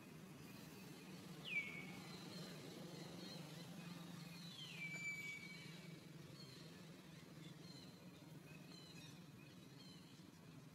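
Two whistled animal calls, each sliding down in pitch and then holding, the second held longer, over a faint, quiet outdoor background with a few soft high chirps.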